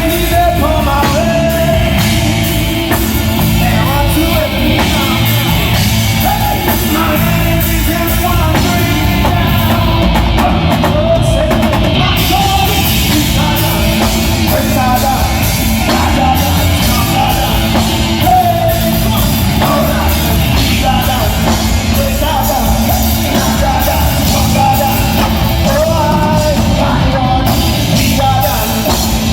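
Live gospel band playing loudly and continuously, a singer's voice over drum kit and bass, during a sound check.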